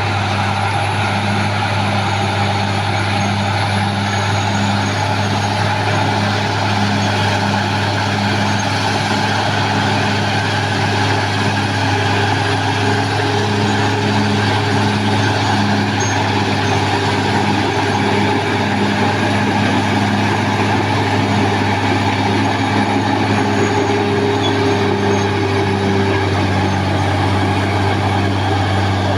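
Caterpillar D6R XL bulldozer's diesel engine running loud and steady, a low drone with a faint regular pulse in it.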